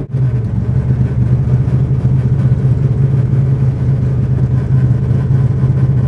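Factory Five Racing Cobra replica's V8 engine running as a steady low drone, heard from the open cockpit while driving.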